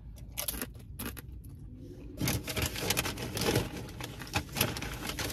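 Tortilla chips crunching and crackling: a few sharp clicks, then a dense crisp crackle from about two seconds in.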